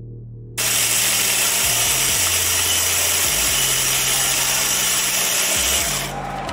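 Electric espresso grinder running, grinding coffee beans into a portafilter, with music's low bass notes underneath. The loud grinding starts about half a second in and falls away shortly before the end.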